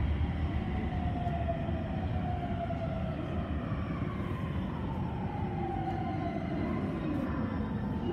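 Toei Shinjuku Line train set 10-470 heard from inside the car: the traction motors' electric whine falls slowly and steadily in pitch over a constant rumble of wheels on rail as the train slows.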